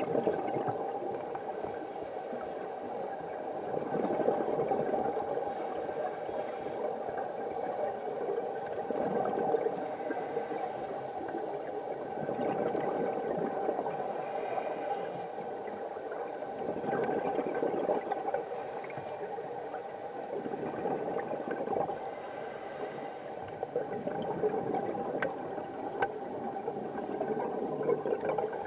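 Scuba diver's breathing underwater, heard through the camera housing: regulator hiss and gurgling streams of exhaled bubbles that swell every few seconds with each breath.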